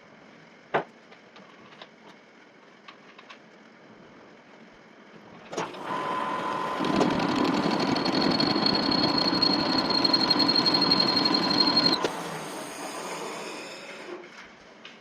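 Metal lathe started about five seconds in, running steadily with a constant whine for about six seconds, then switched off and winding down. A few light clicks come before it starts.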